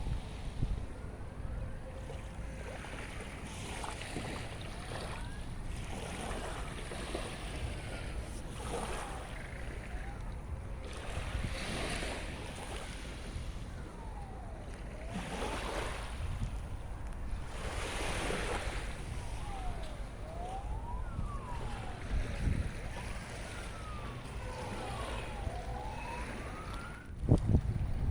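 Sea waves washing onto the shore in surges every few seconds, with a steady wind rumble on the microphone. Gulls cry throughout in gliding calls that rise and fall, and a gust hits the microphone hard near the end.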